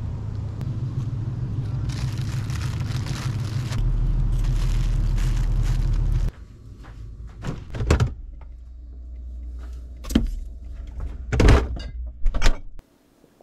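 A steady low rumble and hiss that cuts off about six seconds in, then a string of knocks and clatters from a refrigerator door being opened and the jars inside being handled, the loudest near the end.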